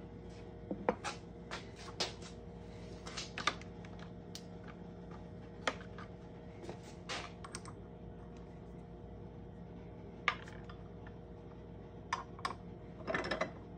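Light, scattered clicks and taps of small steel ring-forming dies and a copper coin ring being handled and set into an arbor press, with a quick cluster of clicks near the end.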